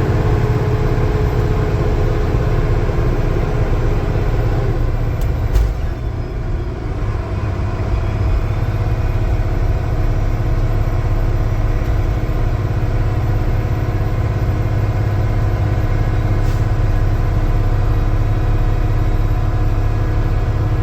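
Volvo semi-truck's diesel engine running steadily under load as the truck pulls up a hill, with a sharp click about five and a half seconds in.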